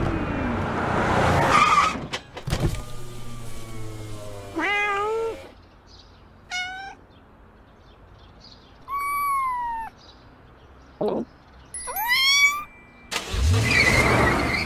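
Cat meowing about four times, some calls rising and some falling in pitch, with a car engine running loudly at the start and a car going past near the end.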